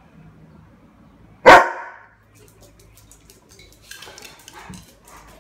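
A Doberman barks once, loudly, about a second and a half in. Near the end come a quick run of clicks and scuffles as the dogs move about on the tile floor.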